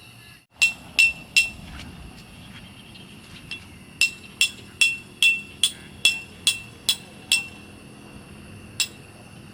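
A hammer striking, with a brief ring after each blow: three quick blows, a pause, then a run of about nine blows a little under half a second apart, and one last blow near the end.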